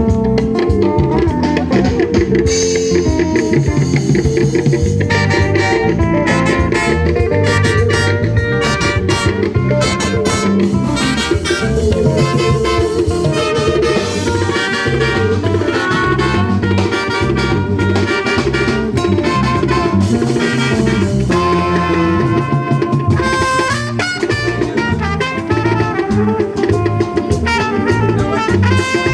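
Loud music with a drum kit and pitched instruments playing continuously, as in a sound-system or band sound check.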